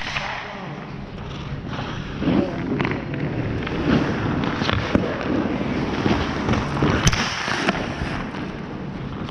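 Irregular sharp cracks of hockey sticks and pucks, shots and pucks striking the goalie's pads and the boards, over the scraping of skates on the ice; the sharpest crack comes about seven seconds in.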